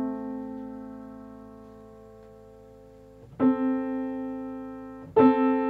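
Piano octave A3–A4 ringing and decaying, then struck twice more about two seconds apart, as a tuner listens for the 6:3 coincident partial; this octave is narrow at the 6:3.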